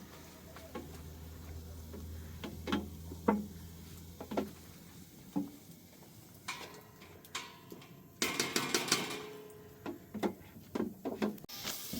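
Scattered clinks and knocks of kitchen utensils against dishes and cookware, with a dense clatter about eight seconds in. A low hum runs under the first half and fades out about five seconds in.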